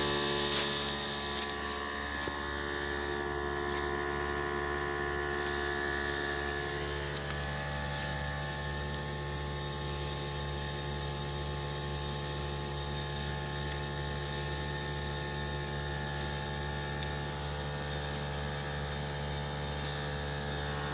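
Harbor Freight 12-volt 150 PSI portable air compressor running steadily, its motor and piston pumping air into a flat tire.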